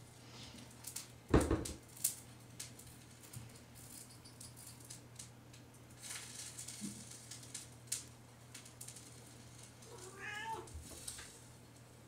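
A cat working at a kitchen cabinet door: the door knocks shut once, loudly, about a second in, with scattered light clicks and rattles of the door and its handle after that. The cat gives one short meow near the end.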